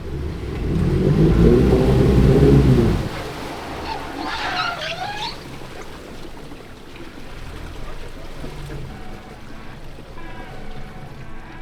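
A boat's outboard motor revs up and then drops back off over about two and a half seconds. A brief high gliding sound follows a couple of seconds later.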